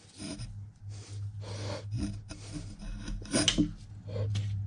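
Knee clamp lever and screw on a Kearney & Trecker 2HL horizontal milling machine being worked by hand: irregular short metal scrapes and rubs, with a couple of sharp clicks about three and a half seconds in. A low steady hum runs underneath.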